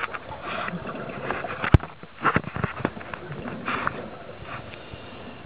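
Scuba diver underwater breathing through a regulator: irregular hissing breaths and bubble noise, with scattered knocks and one sharp click just under two seconds in.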